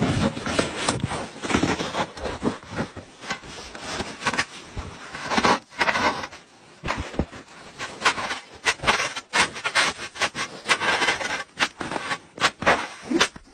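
Small shovel digging and scraping into packed snow, in an irregular run of short scraping strokes.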